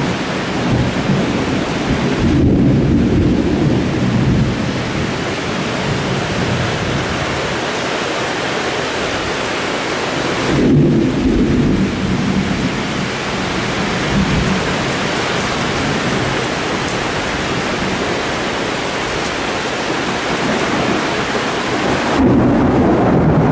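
Heavy rainstorm: a steady, loud rush of rain falling on paving, lawn and roofs. A deeper swell rises through it three times: about two seconds in, about ten seconds in, and near the end.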